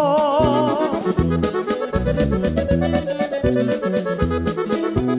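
Norteño band music: a button accordion plays a quick melodic run over stepping bass notes and a steady beat.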